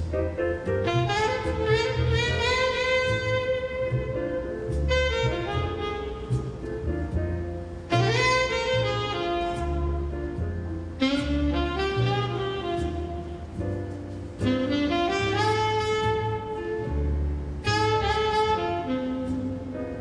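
Music: a melody line in phrases of a few seconds, several sliding up in pitch, over low bass notes that change every second or so.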